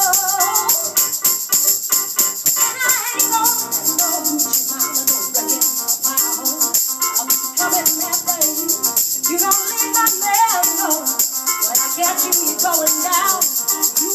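Live song: a hand shaker keeps a fast, steady rhythm over keyboard accompaniment while a woman sings, holding a note with wide vibrato near the start.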